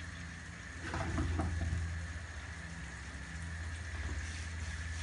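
A pot of pasta water and a pan of tomato sauce bubbling on a gas hob over a steady low hum, with a brief louder patch of noise about a second in.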